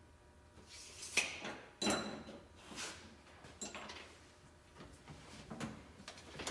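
Tools and parts being handled during a fuel pump install: a string of irregular light knocks and clatters, the sharpest a little under two seconds in.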